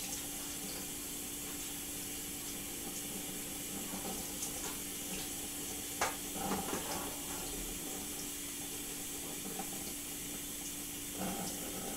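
Kitchen tap running steadily into a stainless steel sink, with a faint steady hum underneath and a few light knocks about six seconds in.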